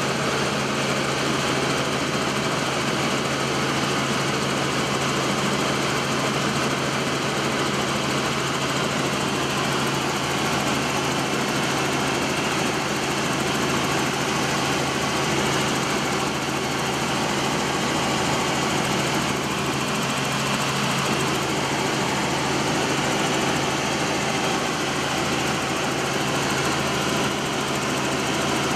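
Helicopter in flight heard from inside its cabin: the engine and rotor make a steady, even drone with a low hum beneath it.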